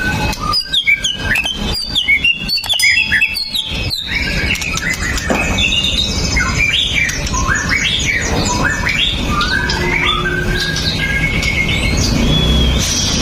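White-rumped shama singing. For the first few seconds it gives a rapid string of short, sharp notes and clicks, then a flowing run of rising and falling whistled phrases.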